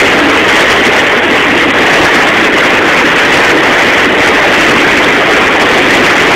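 Boat's wake churning and rushing steadily behind the hull, with the boat's motor running underneath.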